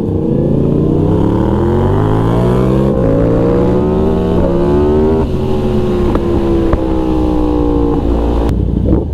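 Yamaha MT-series motorcycle engine accelerating through the gears, rising in pitch and dropping at upshifts about three and five seconds in. It then pulls steadily higher and eases off near the end, with low wind rumble on the helmet mic.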